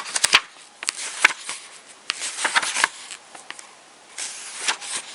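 Pages of a thick book being flipped and handled: a run of short papery rustles and snaps, as if leafing through to the end to check the page count.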